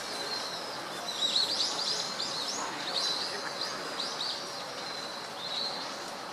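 Birds chirping in quick runs of short, high chirps over steady outdoor background noise.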